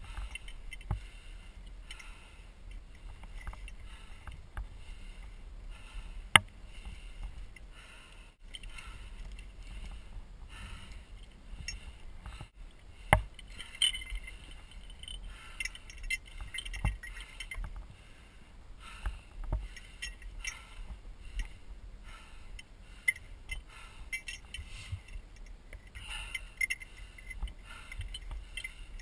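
Climber moving over granite: hands and shoes scraping and knocking on the rock, and gear clinking now and then, over a low wind rumble on the microphone. Sharp knocks come about six seconds in and again about thirteen seconds in.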